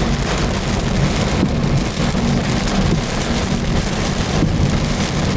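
Heavy rain pelting a moving car, heard from inside the cabin, with a steady low rumble underneath.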